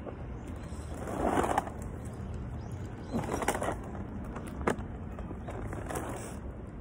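Plastic bags and snack wrappers rustling and crinkling in a few short bursts as rubbish is gathered up, with one sharp click near the middle.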